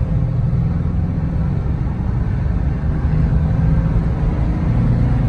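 Road noise inside a moving car's cabin on a freeway: a steady low drone of tyres and engine.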